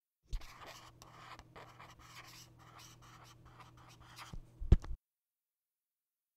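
A pen scratching across paper in quick, uneven strokes as a handwritten signature is written, with one sharp tap of the pen near the end of the writing.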